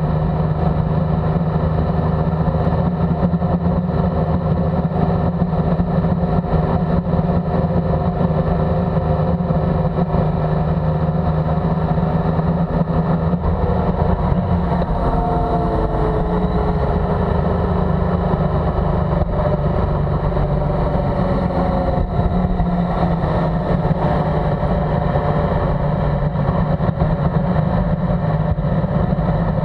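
Motorcycle engine running steadily at road speed. Its pitch falls in the second half as the bike slows down.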